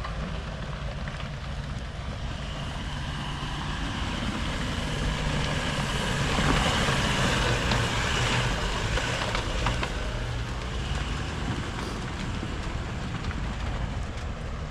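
Off-road pickup truck engine working up a very steep dirt slope. The sound grows louder to a peak about halfway through, then eases off.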